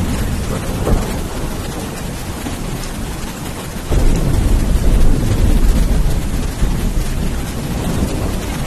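Steady heavy rain, with a deep roll of thunder rumbling in about four seconds in and slowly fading away.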